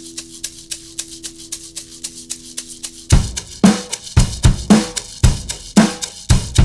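Instrumental break in a song. A quick steady tick of cymbal or shaker plays over held chords, then a full drum kit comes in with kick and snare about three seconds in.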